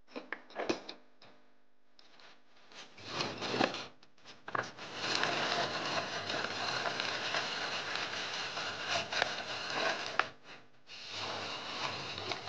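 Plastic lid clicking onto a hand-operated food chopper, then the chopper worked by hand, its blades spinning and rattling as they chop fresh mint leaves, in a long run from about five to ten seconds in and again near the end.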